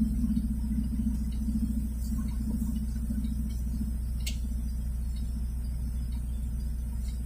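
A road vehicle's engine and tyre noise heard from inside the cabin as it makes a slow U-turn: a steady low rumble, with one faint click about four seconds in.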